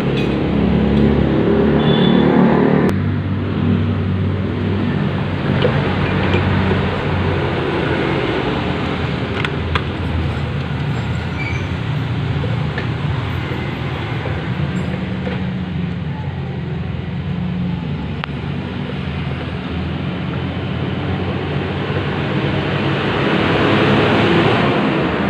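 Motorcycle engine running steadily, its pitch shifting slightly now and then, with a few light metallic clicks.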